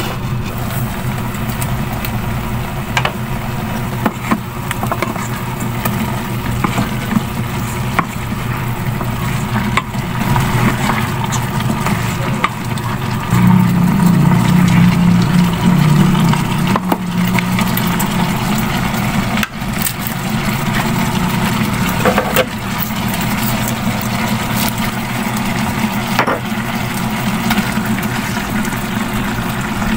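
Pork and onions simmering in an electric cooking pot: a steady low hum and bubbling, with occasional clicks of a utensil against the pot. The stirring is louder and busier from about 13 to 17 seconds in.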